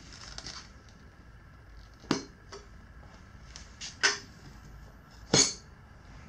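Steel tire irons clinking against the metal wheel rim as the tire bead is levered on: three sharp clanks a second or two apart, the last the loudest, with a few fainter ticks between.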